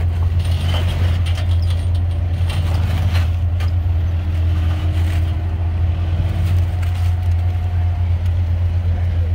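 Jeep Wrangler JK Rubicon's engine running steadily at low revs as it crawls over rocks, a constant low rumble, with a few faint knocks in the first few seconds.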